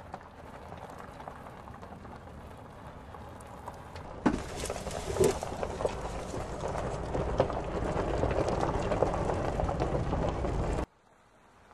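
A car's tyres and suspension rolling slowly over a rough test-track surface: a dense rumble with many small knocks and clatters. It starts suddenly about four seconds in and cuts off abruptly near the end.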